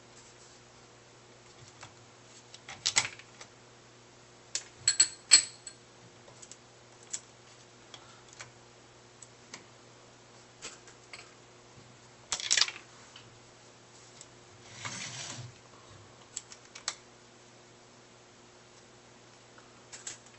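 Scattered clicks and brief clatters of small metal washers and nuts being handled and fitted onto the bolts of a wooden printer-bed mount, with a short scraping rustle about fifteen seconds in, over a faint steady hum.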